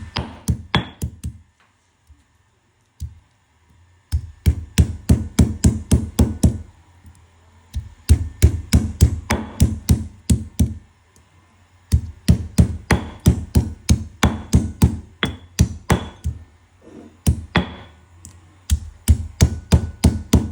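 Runs of rapid, hard knocks on roasted ginger pieces, about five strokes a second in bursts of a few seconds with brief pauses, as the ginger is broken up by hand.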